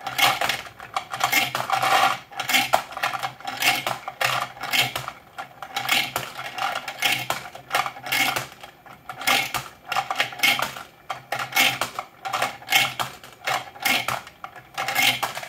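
A 3D-printed bullet feeder for 9mm reloading running: its rotating plastic plate tumbles a pile of 9mm bullets, so they clink and clatter against each other and the bowl several times a second, irregularly. A steady low hum of the feeder's motor runs underneath.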